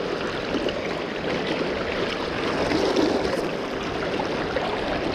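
Fast river current rushing and splashing close by: a steady, even water noise.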